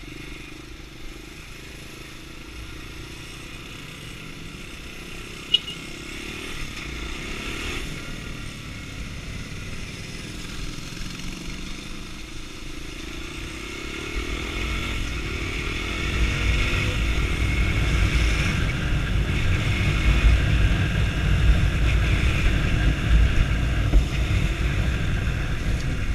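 Sundown STX 200 Motard's single-cylinder engine running under way, rising in pitch as the bike speeds up through the middle of the stretch. After that the low rumble grows much louder.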